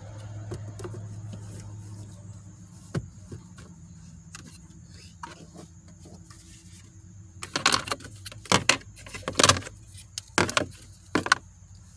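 Hard plastic knocks and rattles as a cabin air filter is seated and its black plastic cover is handled and fitted into the filter housing: one click about three seconds in, then a flurry of sharp clatters over the last four seconds.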